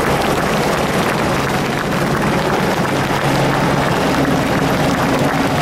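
Light helicopter flying low overhead just after lift-off: steady rotor and engine noise with a low, even hum.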